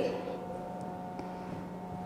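Quiet room tone with a faint, steady low electrical hum.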